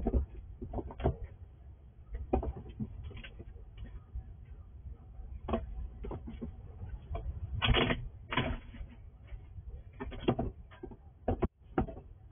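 A squirrel making irregular clicks, scratches and rustles as it moves about a plastic squirrel house, with a few louder clusters of clatter around the middle.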